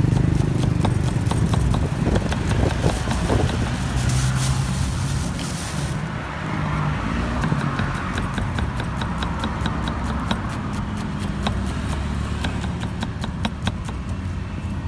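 A knife slicing red onion on a round wooden chopping board, with quick regular knocks of the blade on the wood, several a second. Under it runs a steady low rumble of traffic.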